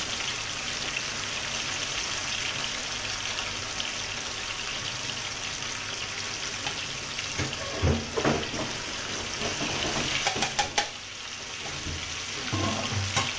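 Fish pieces coated in salt, turmeric and egg white sizzling as they deep-fry in a wok of hot oil, a steady hiss. A few short knocks come about halfway through and again near the end.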